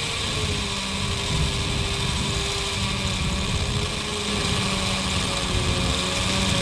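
Electric rotary hammer drill running steadily under load, its bit boring into a masonry block.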